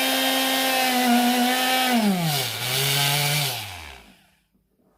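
Moulinex blender's brushed motor running at a steady high speed on test, then switched off about two seconds in, its pitch falling as it spins down and stops about four seconds in. It still sparks, which the repairer puts down to vibration.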